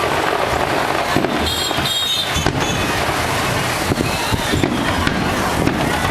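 Fireworks going off in a dense, continuous crackle of many small bangs, with a brief whistling tone about one and a half seconds in.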